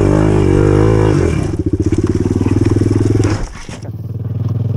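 Enduro motorcycle engine revving hard under load on a climb, then dropping about a second in to a lower, evenly pulsing run; near the end it dips and is heard quieter.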